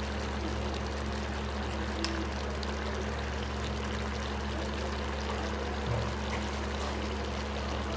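Steady hiss with a constant low hum from a pot of chicken cooking in its own juices on the stove.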